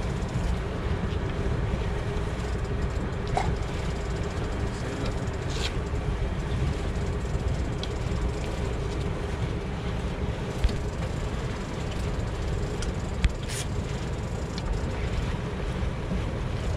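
Motor boat's engine running steadily under a low wind rumble on the microphone, with a couple of sharp clicks partway through.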